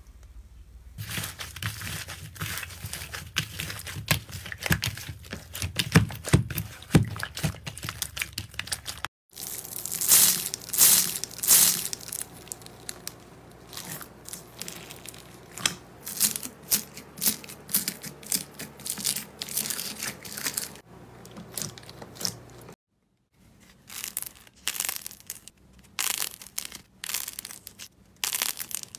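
Hands squeezing and pressing slime, much of it packed with foam beads, giving a run of irregular crackles and clicks. The sound breaks off briefly twice, about nine seconds in and again about twenty-three seconds in.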